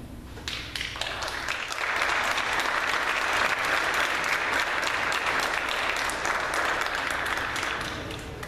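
Audience applauding: a few scattered claps at first, swelling into full, dense applause about two seconds in, then thinning out near the end.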